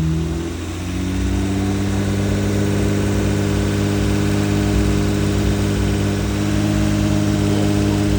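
Acura TL engine dropping back from a light rev in the first second, then idling steadily.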